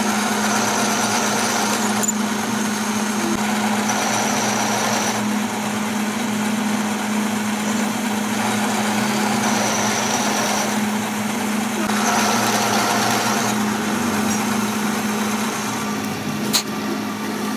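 A workshop machine running steadily with a constant hum, with a higher-pitched whine coming and going several times and a single sharp click near the end.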